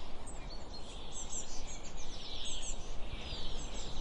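Small birds chirping, many short high calls, over a steady low background rumble.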